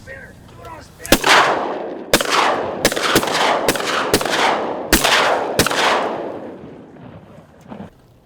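A volley of about seven shotgun shots fired in quick succession by several duck hunters, each shot ringing out with an echo. The shots run from about a second in to just before the six-second mark.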